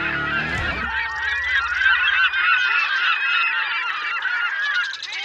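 A large flock of birds calling, many short calls overlapping at once. A low steady tone fades out about a second in.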